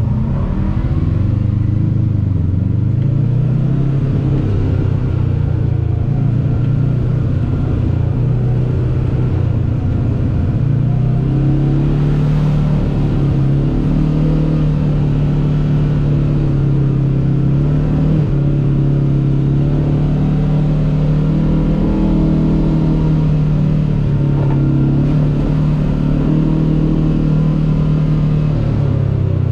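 Kawasaki KRX 1000 side-by-side's parallel-twin engine driving under throttle, its pitch shifting with the throttle: lower in the first few seconds, rising about ten seconds in and holding fairly steady, then dipping near the end.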